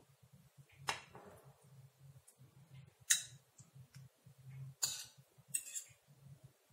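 Metal spoon clinking and scraping against a glass bowl and a ceramic plate as custard vermicelli is spooned out: four short sharp clinks, the loudest about three seconds in, over a faint low hum.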